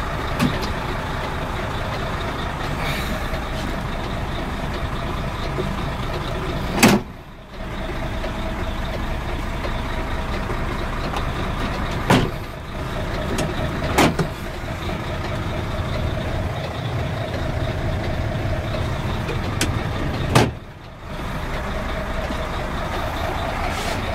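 Mercedes-Benz Actros 1848 truck's V6 diesel running at idle, heard from inside the cab, with four sharp knocks spread through.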